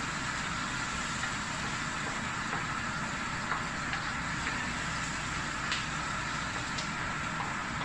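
Steady running noise of a commercial kitchen's lit gas range and ventilation, with a few faint taps as a wooden spatula stirs food in a steel wok.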